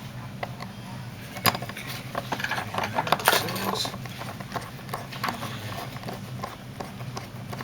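Light metallic clicks and clinks of a lock cylinder and its parts being handled and reassembled after rekeying, with a few sharper clicks, the loudest about three seconds in.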